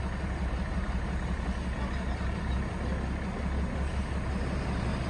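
Heavy trucks' diesel engines idling, a steady low drone.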